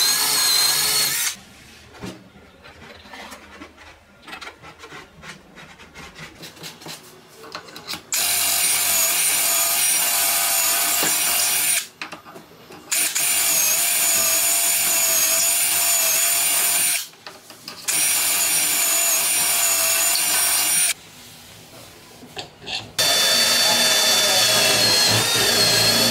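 Cordless Milwaukee drill boring holes through a doweling jig's guide bushing into the edge of a wood panel, in about five runs of a few seconds each with short pauses between. The motor whine wavers in pitch as the bit bites into the wood; a longer pause early on holds only light clicks.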